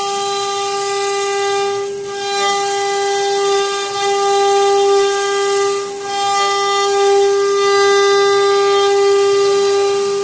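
CNC router spindle whining steadily at one high pitch, over the hiss of a V-bit cutting into a wooden door panel. The cutting hiss dips briefly twice, about two and six seconds in.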